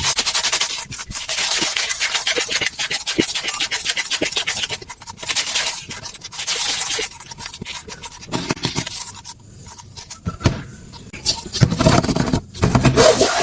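Rubbing and scraping on a surface, a dense run of short strokes, quieter for a few seconds past the middle.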